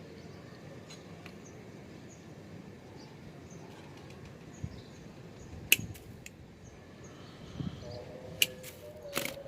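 A few sharp clicks and snaps from hand tools and plastic MC4 solar connector parts being handled, the loudest about six seconds in, with faint bird chirps behind.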